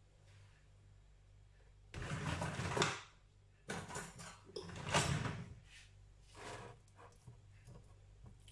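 A kitchen cutlery drawer slides open about two seconds in, then metal cutlery clatters as a fork is picked out of it, with a shorter rattle a little later.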